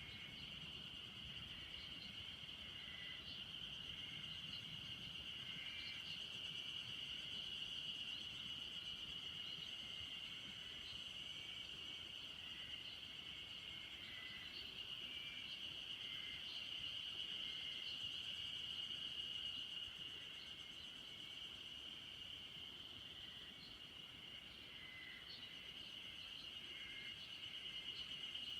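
Chorus of insects such as crickets: a steady, high continuous trill, with short faint chirps scattered through it.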